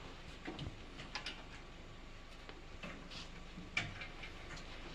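Scattered light metallic clicks and taps from a stainless steel folding table being handled and set up, its legs and hinges knocking into place, with one sharper click near the end.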